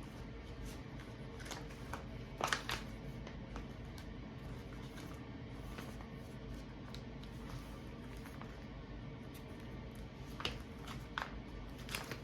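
Paper pages of a handmade journal being handled: scattered soft rustles and taps, the loudest about two and a half seconds in, over a low steady hum.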